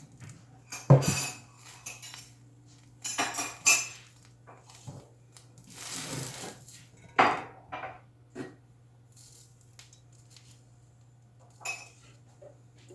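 Kitchen pots, pans and utensils being handled, with a sharp knock about a second in and scattered clinks and clatters after it, over a faint steady low hum.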